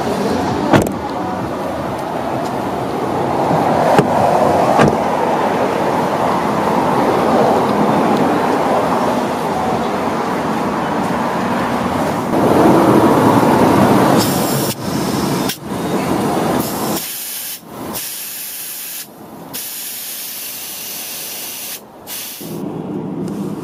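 Steady rushing noise, then compressed air hissing from a tyre inflator in several bursts that stop and start as its chuck is pressed on and off a car tyre's valve.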